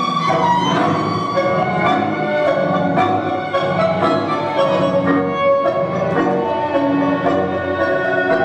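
Tango music: sustained melody notes over a regular, steady beat.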